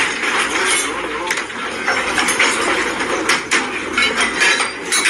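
A home's fittings and furniture rattling and knocking during earthquake shaking, with irregular clattering throughout and a voice mixed in.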